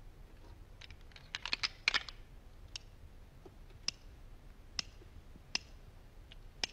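Metal clicks of a single-action revolver's mechanism, its hammer being cocked and its cylinder turned. There is a quick run of clicks about a second in, then single clicks roughly once a second.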